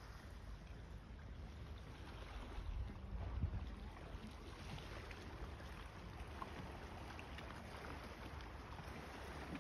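Wind buffeting the microphone: a steady low rumble that swells briefly a few seconds in, under a soft outdoor hiss with a few faint ticks.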